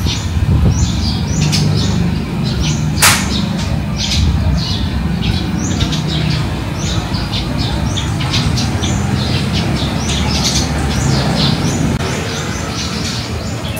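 Many small birds chirping rapidly and continuously over a steady low rumble, with a single sharp click about three seconds in.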